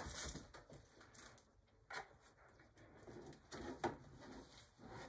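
Faint handling noise: soft rustling with two sharp clicks about two seconds apart.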